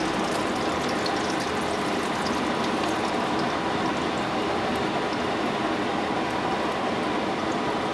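A steady background hum and rush, even throughout, with faint light ticks in the first few seconds.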